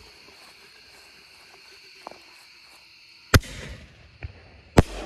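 Consumer ball shell fired from a paper mortar tube: a loud launch bang, a small pop, then a second loud bang as the shell breaks in the air, the two bangs about a second and a half apart.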